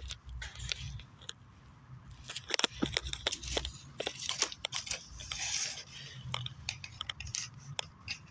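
Packaging or wrapping being handled: irregular crinkling and rustling with many small clicks and crackles, busiest in the middle.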